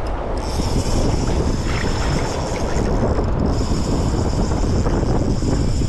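Wind buffeting the microphone on open water, with a steady high hiss that sets in about half a second in.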